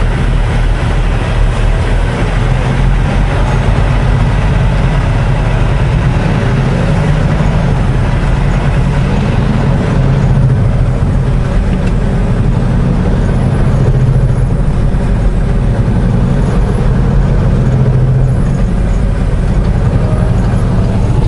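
Semi truck's diesel engine running steadily under load, heard from inside the cab, with road and wind noise over it. The engine note shifts up and down a few times as the truck drives on.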